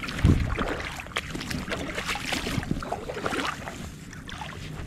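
Irregular rustling and handling noise from a person's clothing and movements, with light wind on the microphone and a soft low thump shortly after the start.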